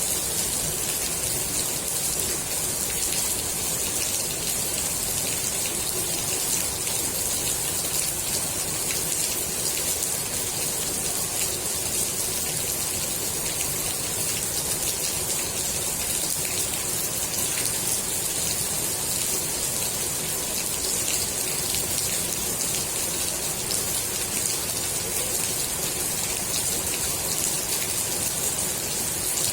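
Steady rain falling onto a swimming pool's water surface: an even hiss of many small drop splashes.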